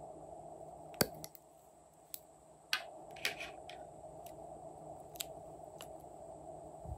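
A sharp plastic click as a lipstick tube is opened, then a few short snips and ticks as the lipstick is cut into chunks with scissors. A faint steady hiss lies under it all.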